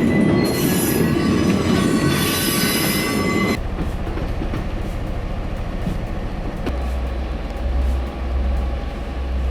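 Heavy machinery: a loud high-pitched metallic squeal with a clattering rumble, which gives way abruptly about three and a half seconds in to a lower, steady diesel engine drone.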